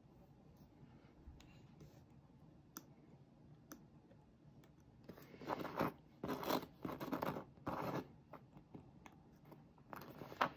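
X-Acto craft knife blade cutting and scraping copper foil along the edge of a small glass piece, trimming off an uneven overhang of foil. A few faint ticks, then about five short scraping strokes in quick succession about halfway in, and one more near the end.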